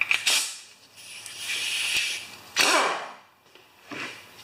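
Blue disposable nitrile gloves being pulled on: several short rubbery rustles and snaps, with a longer hissing rustle in the middle.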